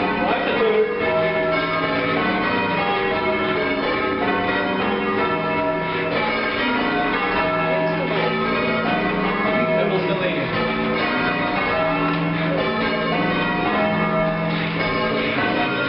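Church tower bells rung full-circle in change ringing: several bells strike one after another in a continuous, even sequence, their tones overlapping and hanging on.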